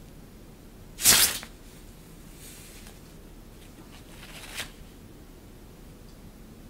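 Rustling of a sheet of shiny synthetic fabric as a feather cat teaser is pulled under and across it: one loud, short rustle about a second in, then two softer swishes.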